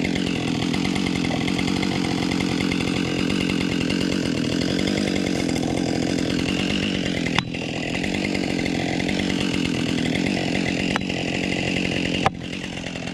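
Husqvarna 572 XP two-stroke chainsaw running steadily while it is set down. Over it come three sharp knocks of an axe driving a plastic felling wedge into the back cut, the first about halfway through and two more near the end.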